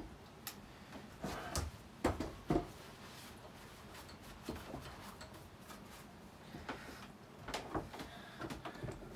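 Handling noise from a Coocher 62cc chainsaw being worked on a wooden workbench and then lifted: scattered clicks and knocks of its plastic housing and parts, several close together about two seconds in and more near the end.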